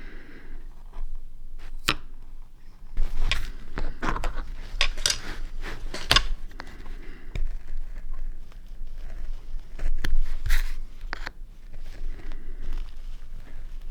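Irregular short scraping cuts of a lino-cutting gouge being pushed through a linoleum block, some strokes sharper and louder than others, the loudest about three to six seconds in and near ten seconds.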